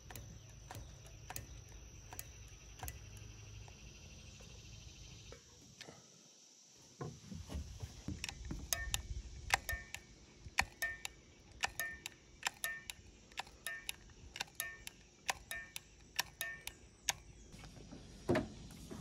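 Manual caulking gun being squeezed to run sealant along a roof seam, its trigger and plunger rod clicking repeatedly, roughly twice a second in the second half.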